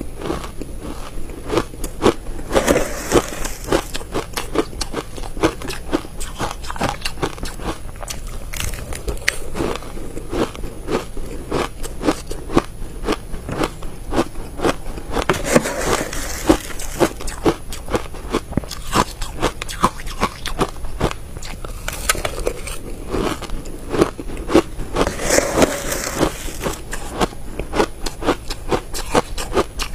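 Close-miked biting and chewing of crushed ice coated in matcha powder: a dense, fast run of crackling crunches throughout, with a few louder spells.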